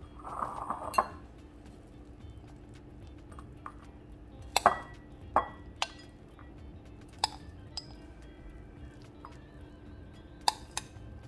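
Metal spoon scooping bhel puri mixture and clinking against a bowl and plate: a short scrape in the first second, then several sharp, separate clinks spread through. Soft background music underneath.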